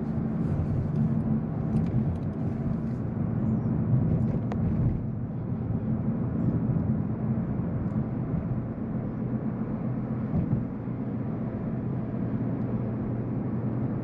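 Steady low road and tyre rumble inside the cabin of a Volkswagen Golf GTI cruising at about 30 mph, from summer tyres on 19-inch wheels, with the engine barely heard under it.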